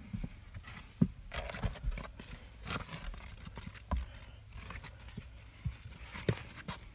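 Irregular thumps and knocks with scattered rustling as a person crawls over wooden joists and loose insulation, the sharpest knock about a second in.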